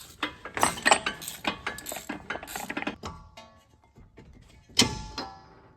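Hand ratchet wrench clicking in quick runs, with light metal clinks, then one loud sharp metal clank about five seconds in.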